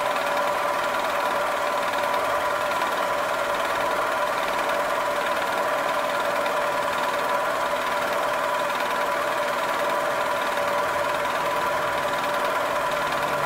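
Milling machine spindle running steadily with a constant whine, as a half-inch end mill cuts an arc through a block turned on a rotary table.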